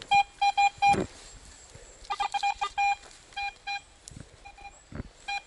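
Metal detector beeping in bursts of short, same-pitched tones as the coil passes over a buried target, with one brief higher beep among them. A couple of dull thumps come near the end.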